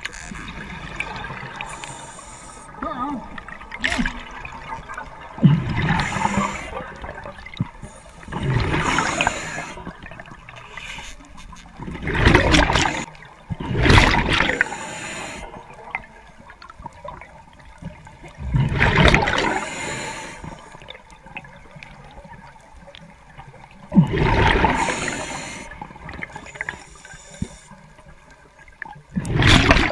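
A diver's breathing underwater: about seven bursts of exhaled bubbles rushing from the regulator, each a second or two long and coming every few seconds.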